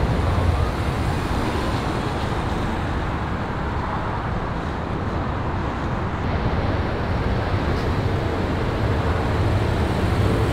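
Steady traffic noise, an even low rumble with hiss, as a 2022 Lexus NX 350h hybrid SUV rolls slowly by on its nearly silent hybrid drive.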